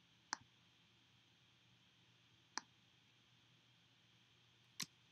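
Three single computer mouse clicks, about two seconds apart, over near silence.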